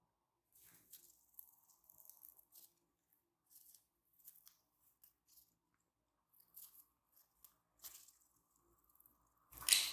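A pair of Fischer's lovebirds making short, faint, scratchy high-pitched chirps in scattered bursts, with one louder chirp near the end.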